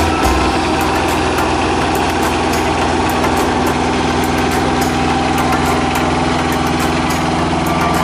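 Small crawler-type rice combine harvester's engine running steadily at an even pitch as the machine moves slowly forward.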